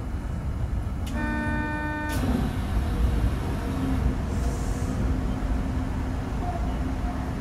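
Rubber-tyred automated guideway train running steadily along a concrete guideway, with a low rumble. About a second in, a horn-like tone sounds once for about a second, starting and stopping abruptly.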